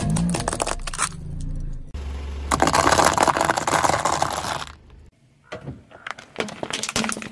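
A car tyre rolling over and crushing things on asphalt: sharp cracks in the first second, then a long dense crunching of dry rigatoni pasta from about two and a half seconds to nearly five, and scattered cracks near the end.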